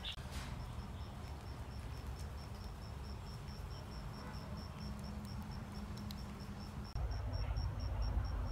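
An insect chirping in a steady high-pitched pulse, about seven chirps a second, over a low rumble that grows louder about seven seconds in.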